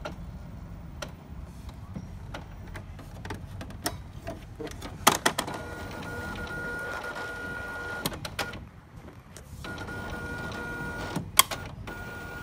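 Epson Stylus Photo T60 inkjet printer running its mechanism after being switched on. A burst of sharp clicks comes about five seconds in, followed by motor whirring with a steady high whine. The whine stops briefly, starts again with another sharp clack, and runs on to the end.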